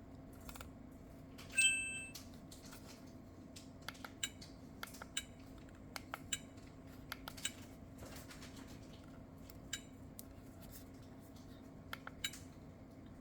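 Godox C100 giving a short electronic beep about a second and a half in, followed by a scattered series of sharp clicks, about a dozen of them, as it is operated through its modes; a steady low hum runs underneath.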